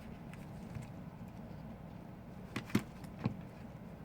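A few short, sharp clicks from small tools handling a phone being taken apart, three of them in the second half, over a steady low hum.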